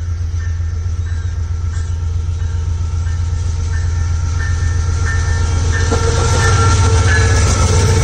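Diesel locomotives hauling a loaded iron-ore freight train running by, a deep engine rumble that grows louder about six seconds in as the lead units pass close.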